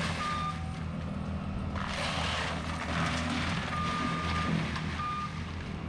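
Compact track loader with a brush mower running steadily under load as it mulches a wooden shed, with a burst of crunching and splintering about two seconds in. Its backup alarm beeps a few times, one beep held longer near the end.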